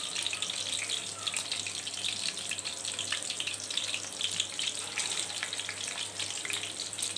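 Egg-coated beef jali kabab patties shallow-frying in hot oil in a pan: a steady sizzle full of small, quick crackles.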